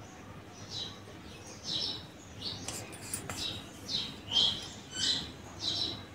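A small bird chirping repeatedly in the background, short high calls that drop in pitch, about one or two a second.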